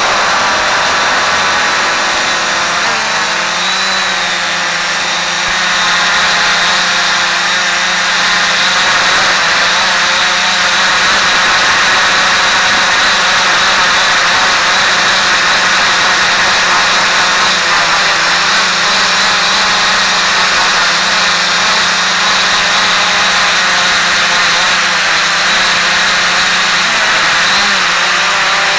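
Multirotor drone's electric motors and propellers buzzing steadily, close to the microphone, with a high whine over a low hum. The pitch shifts slightly as the throttle changes.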